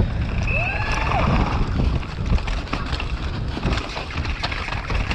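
Wind buffeting a GoPro's microphone while a downhill mountain bike clatters and rattles over rough, fast trail, with many short knocks from the bike and the ground.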